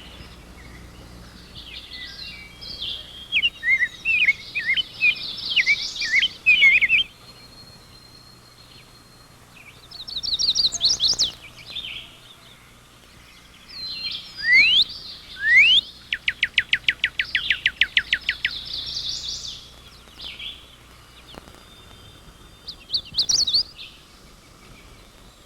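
Songbirds singing in separate phrases: high twittering warbles, a couple of quick rising whistled sweeps, and a fast, even trill lasting about two seconds, with short quiet gaps between phrases.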